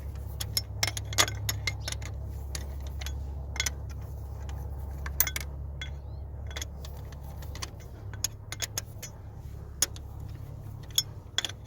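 Irregular sharp metallic clinks of hand tools and already-loosened cylinder-head bolts being worked out of the engine, over a steady low hum that fades near the end.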